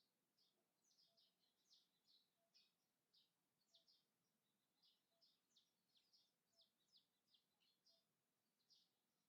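Very faint birdsong: many short, high chirps in quick succession, with a softer, lower short note repeating about once a second.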